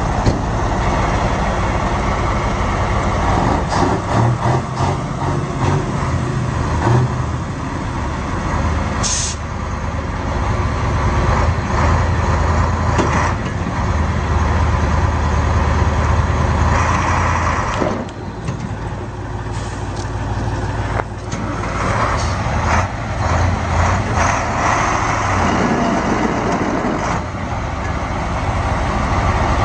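Heavy diesel engines of a KamAZ and a Ural army truck running hard under load as the two trucks pull against each other on a tow strap, the engine note rising and falling several times. A brief high hiss about nine seconds in.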